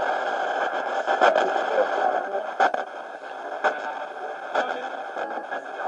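SBox ghost box sweeping through radio stations: a steady rush of radio static broken by short clicks, about one a second, as it jumps from frequency to frequency, with brief snatches of station audio.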